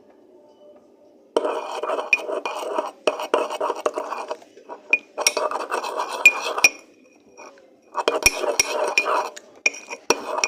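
A utensil stirring dish soap in a hard container, scraping and clinking against its sides in five spells of one to two seconds with short pauses between.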